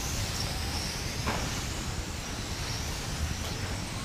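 Small electric radio-controlled race cars running on a carpet track, their motors giving a high wavering whine over a steady hiss. About a second in, one car's whine drops sharply in pitch.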